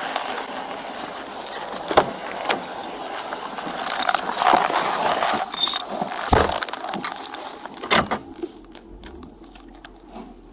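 Body-worn camera rubbing and jangling against a police officer's duty gear as he walks after two people, with a few sharp knocks.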